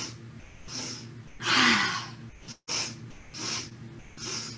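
A woman doing 'breath of joy' yoga breathing: quick sniffing inhales through the nose, a loud open-mouthed exhale about a second and a half in with her voice falling in pitch, then three more short sniffs.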